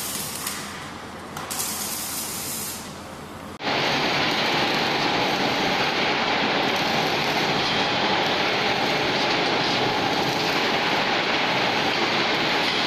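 Arc welding on a rebar-cage seam welding machine: a steady hiss with brief bursts of high hiss, then about three and a half seconds in it cuts abruptly to a louder, denser, steady hiss.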